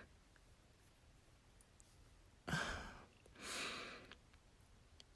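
A woman sighing: a sharp breath in about halfway through, then a longer breath out.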